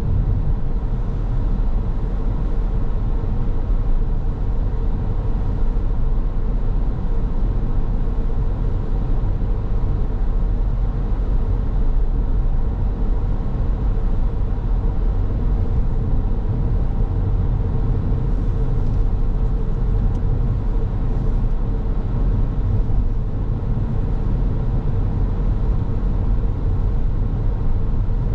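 A car driving at a steady pace: an even, unbroken low rumble of road and engine noise, with a faint steady hum.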